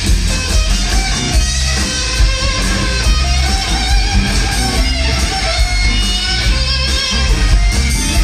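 Live blues-rock band playing: several electric guitars, bass and drum kit, with a sustained lead line bending in pitch over a steady drum beat.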